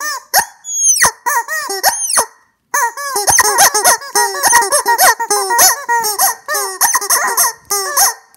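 Squeezed rubber chicken toys squawking: a few separate squawks at first, a short pause, then from under three seconds in a fast, dense run of overlapping squawks at different pitches, played as a song.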